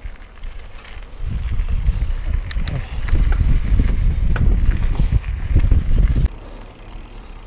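Wind buffeting the microphone of a riding mountain bike, with scattered clicks and rattles from the bike rolling over gravel. The rumble starts about a second in and cuts off suddenly about six seconds in.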